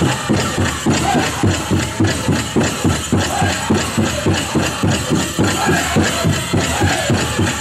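Powwow drum group playing for the men's chicken dance: the big drum struck in a steady, even beat, with high singing voices over it at times.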